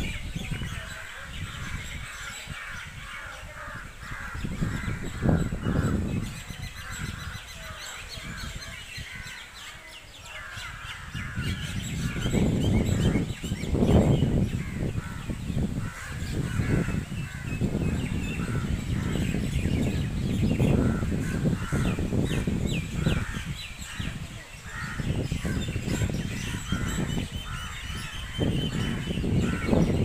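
Crows cawing among a dense chorus of other birds calling, with low noise that swells and fades beneath it and grows louder from about twelve seconds in.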